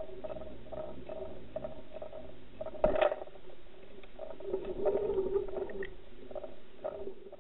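Underwater sound of a fishing line and deep-diving lure being pulled through the water: a steady rumble with a pulsing hum about twice a second. A sharp knock about three seconds in, followed by a busier stretch of thrashing, is a northern pike striking the lure.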